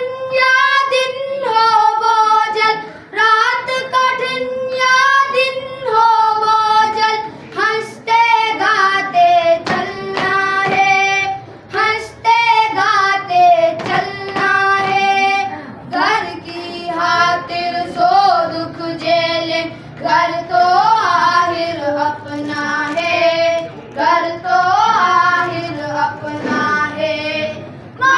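A high solo voice singing a slow Urdu song, phrase after phrase of long held notes that waver in pitch.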